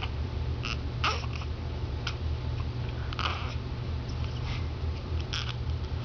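A baby hiccuping: short, sudden hiccups at irregular gaps of one to two seconds, with a little babbling between them, over a steady low hum.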